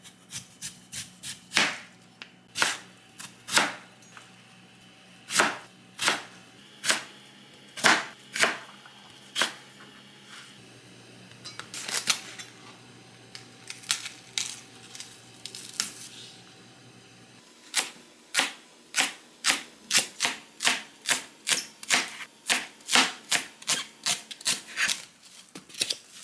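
Kitchen knife cutting Korean radish and green onion on a cutting board: sharp, uneven knife strikes on the board, settling after about 17 seconds into a steady run of about two to three chops a second.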